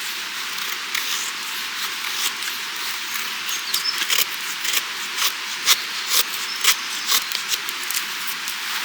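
Steady rushing of a mountain stream, with a run of irregular sharp clicks and snaps through the middle.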